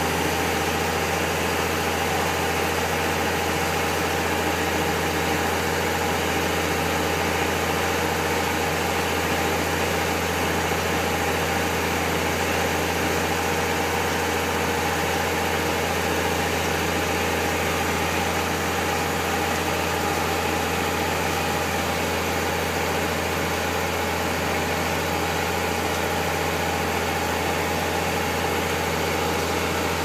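Concrete pump truck's diesel engine running at a steady speed while it pumps concrete through the boom hose into footing forms.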